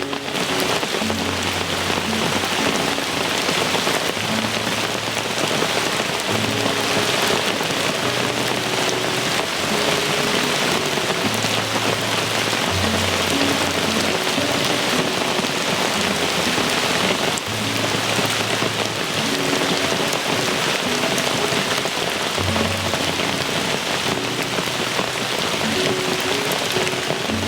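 Heavy rain falling steadily, an even dense hiss, with a soft music track of low held notes underneath.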